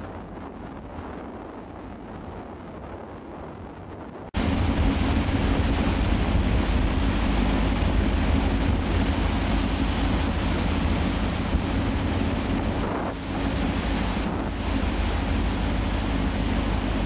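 Wind on the microphone over a low rumble. About four seconds in, the sound cuts abruptly to a much louder steady low rumble with an engine hum: a ferry's engines and propeller wash heard from its deck.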